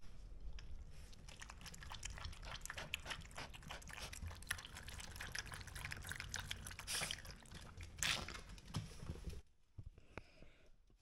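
Schipperke–Chihuahua mix dog lapping water: a long, irregular run of small wet clicks and splashes that stops about nine and a half seconds in.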